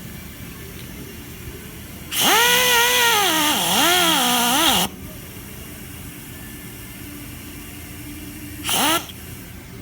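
Power drill run in two bursts. First comes a spell of about two and a half seconds with the motor whine rising and falling as the trigger is varied. Near the end there is a short blip that speeds up and cuts off.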